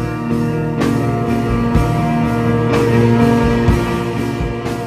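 Instrumental music with guitar and held chords, marked by a few sharp hits.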